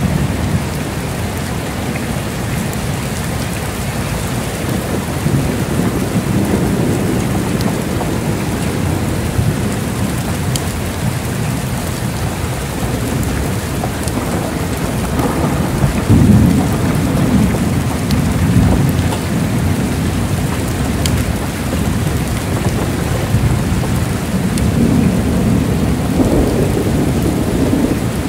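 Heavy rain falling steadily, with deep thunder rumbling in slow swells three times, the loudest just past the middle.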